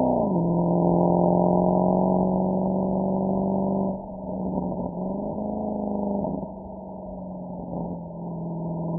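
Mercedes-AMG SL63's V8 exhaust on a drive. Its note drops quickly in pitch at the start, as on an upshift, then pulls steadily. It goes quieter off the throttle about four seconds in and again for a couple of seconds later on, and comes back up near the end.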